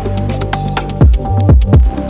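Electronic music with a deep kick drum that drops in pitch, fast hi-hat ticks and held synth notes.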